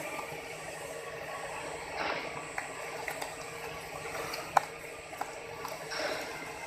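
Forced twin-screw feeder for a plastic extruder running: a steady mechanical hum with a hiss, and scattered sharp clicks, the loudest about four and a half seconds in.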